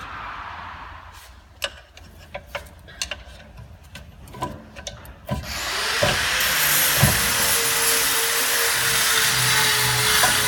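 Scattered metal clicks and knocks of tools, then a steady mechanical rubbing and grinding with a constant whine starts about five seconds in and keeps going.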